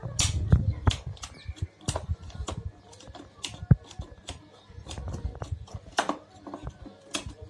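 Vacuum cleaner's plastic switch clicked on and off over and over, with handling knocks, as it is tested after being oiled to move freely.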